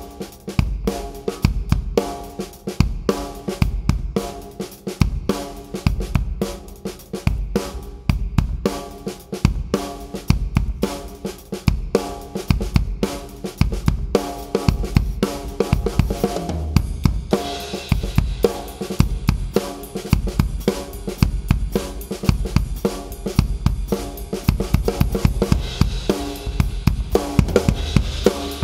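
Acoustic drum kit played in a steady groove, with kick drum, snare, hi-hat and cymbals. About halfway through, a brighter, sustained cymbal wash fills in over the beat.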